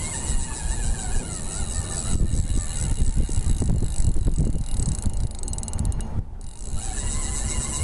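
Spinning reel being worked, its gears and clicking mechanism rattling, with a quick run of even clicks a little after five seconds in, over a steady low rumble.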